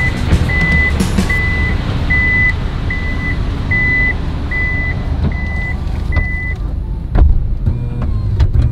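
A van's power tailgate closing: its warning beeper sounds at an even pace, about one beep every 0.8 seconds, then stops about six and a half seconds in. A solid thud follows as the door shuts, over the low rumble of the idling van.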